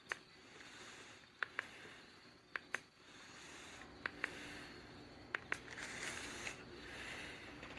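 Ceiling fan with a quiet DC motor running, giving a soft air hiss that swells and fades. Over it, pairs of sharp ticks come about every second and a half.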